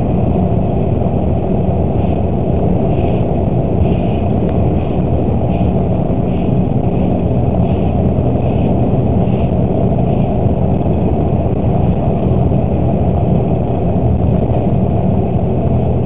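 Bus engine and road noise heard inside the cab through a dashcam's microphone: a steady low drone while the bus drives at speed.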